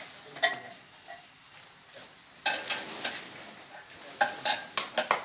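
Steel spanner clinking and scraping on the nuts of a stone flour mill's adjustment bolts as they are tightened: a single clink shortly after the start, a cluster of clinks about halfway through, and a quicker run of clinks near the end.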